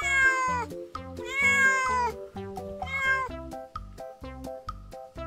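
Young tabby cat crying out in fear, three loud drawn-out meows about a second apart, each dropping in pitch at the end. Background music plays underneath.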